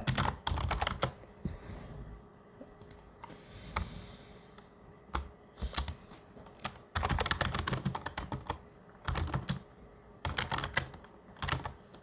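Typing on a computer keyboard: several short runs of keystrokes with pauses between them.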